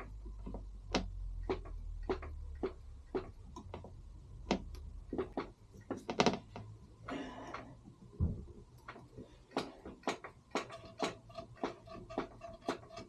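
Rear brake pedal of a BMW F650GS being pumped over and over while bleeding a near-dry brake system, a sharp click about twice a second.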